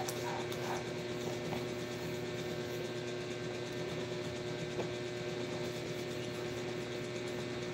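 A steady mechanical hum with one constant tone from a running household appliance, with a faint click near the middle.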